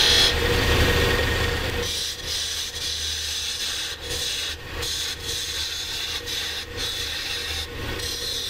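A Robust wood lathe running, with a turning tool cutting a spinning maple burl finial: a steady hum under the scraping hiss of the cut. The cut is louder for the first two seconds, then turns into lighter passes broken by brief pauses as the tool comes off the wood.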